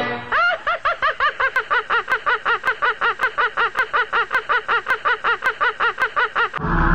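Felix the Cat's cartoon laugh: a long, even run of quick "ha-ha" syllables, about four or five a second, that cuts off suddenly near the end.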